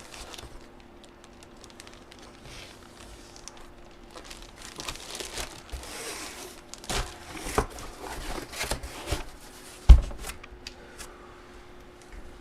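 Crinkling and tearing of trading-card packaging as the next item is opened and handled, in a run of rustling bursts in the middle, with one sharp thump near the end, like something set down on the table.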